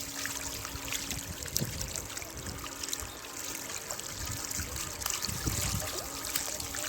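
Water trickling steadily, with many small irregular splashes and ticks at the surface and low gusty rumbles.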